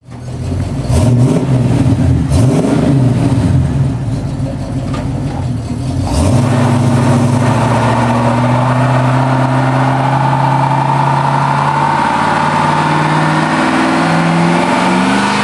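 Chevy pickup engine exhaust through a FloJo muffler: several quick revs in the first six seconds, then held at high revs under load as the rear tyres spin in a burnout.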